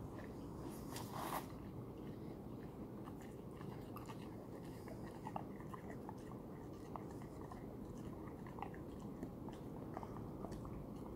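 Bernese mountain dog chewing on a tennis ball, with scattered small crunches and clicks of teeth on the ball and its torn felt.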